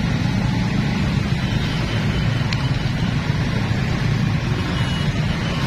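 Steady low rumble of vehicle engines and traffic at a level crossing, with no clear rhythm or break.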